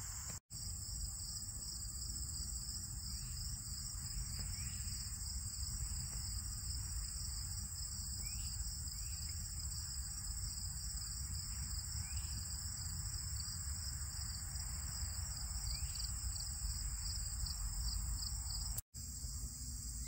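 Late-summer prairie insect chorus, crickets among the singers: a steady, unbroken high-pitched trill, with a few short calls falling in pitch here and there.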